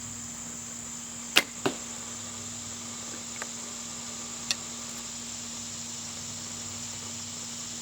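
Desert Fox bow shooting a wooden arrow: a sharp snap on release about a second and a half in, a second knock right after it, and a fainter tap about three seconds later.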